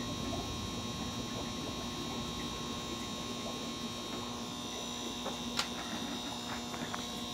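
Steady electrical hum over a background hiss, with a few faint handling ticks and one sharp click about five and a half seconds in.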